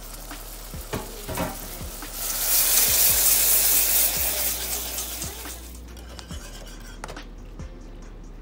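Wire whisk stirring a sauce in a metal saucepan, its wires clinking irregularly against the pan. A loud sizzling hiss swells about two seconds in and dies away by about five seconds.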